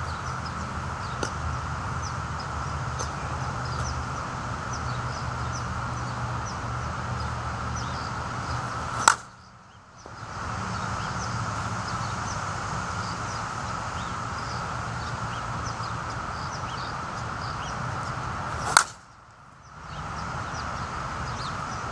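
A composite slowpitch softball bat striking a softball twice, about ten seconds apart: each hit is one sharp, loud crack, after which the background drops out for about a second. Between the hits there is a steady outdoor hiss with faint short chirps.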